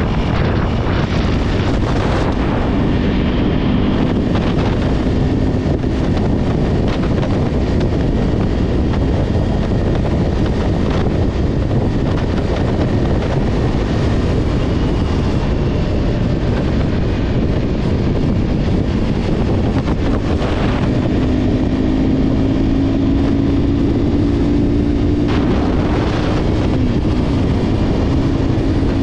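Wind rushing over the microphone at highway speed on a sport motorcycle, with the bike's engine running steadily underneath; the engine's tone edges up in pitch near the end.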